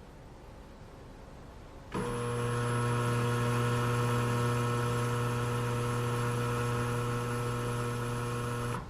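Machine running with a steady, unchanging hum, starting suddenly about two seconds in and stopping abruptly near the end.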